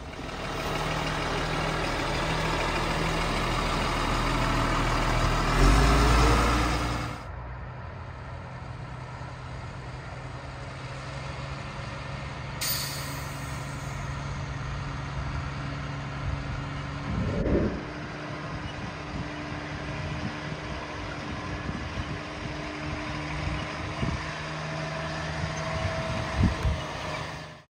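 Diesel engine of a Stewart & Stevenson M1079 LMTV military truck running as the truck drives. The sound is louder for the first seven seconds and drops suddenly, and a short sharp hiss comes about thirteen seconds in.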